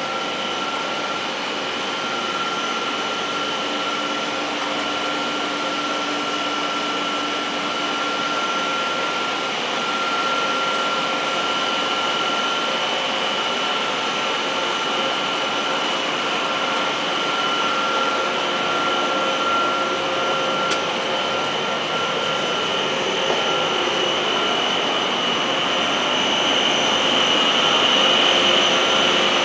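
PVC foam board extrusion line running: a steady machine drone with a constant high whine, growing a little louder near the end.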